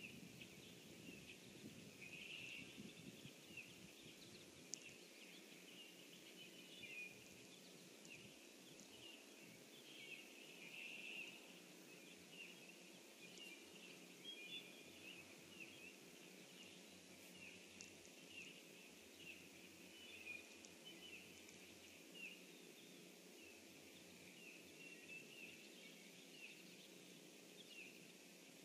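Faint chorus of many small birds chirping and calling at a distance, short calls coming every second or so, over a low steady rumble.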